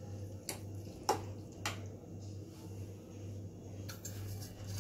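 Spoon mixing grated boiled bottle gourd into yogurt in a plastic bowl, with three light clicks of the spoon against the bowl about half a second apart in the first two seconds, over a low steady hum.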